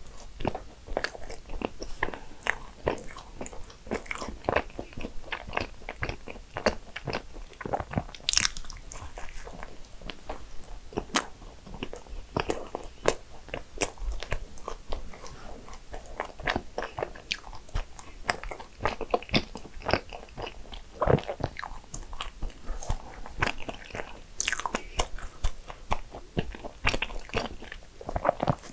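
Biting and chewing of soft cream-filled maritozzo buns, with many small irregular crunchy clicks and crackles throughout.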